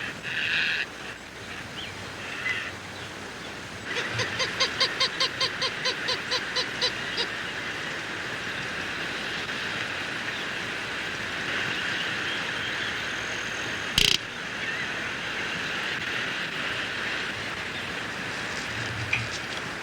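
An animal call: a quick run of about sixteen short pitched notes, some five a second, over a steady outdoor background hiss. A single sharp click sounds about two thirds of the way through.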